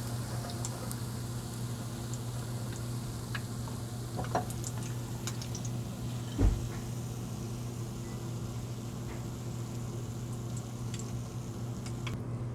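Cooking oil in a pan crackling faintly with scattered pops over a steady low hum, left from frying tofu; a single knock about six and a half seconds in.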